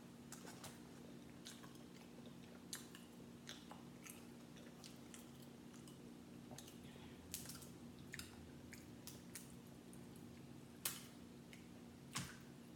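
Quiet eating sounds: chewing, with scattered small clicks and crackles as crab-leg shell is picked apart by hand. A faint steady low hum lies underneath, and the sharpest crackles come near the end.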